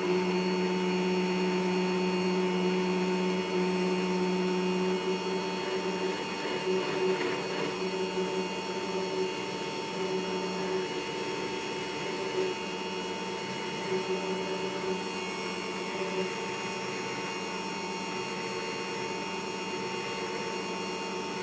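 Electric drill press running steadily with no load, its motor hum carrying a steady whine, while the chuck spins a test pin for a runout check.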